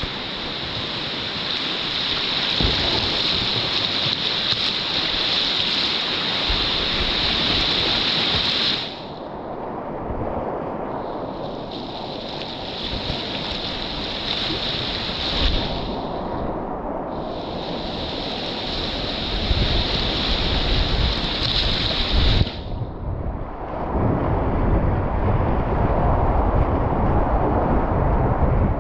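River whitewater rushing and hissing around a kayak, with low rumbling buffets on the microphone; the hiss drops out briefly a few times, and the rush grows louder near the end as the kayak runs into the rapid.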